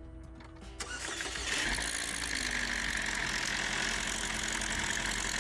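Chevrolet Equinox 2.4-litre four-cylinder engine starting about a second in, then running steadily. Its timing chain is stretched.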